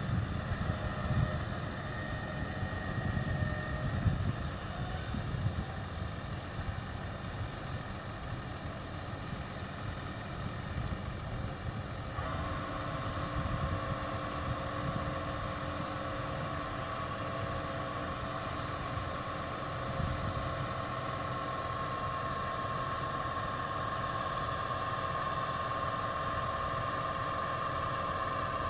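Farm tractor's diesel engine running at low speed while pulling a loaded trailer; about twelve seconds in a steady whine sets in over the low rumble and holds.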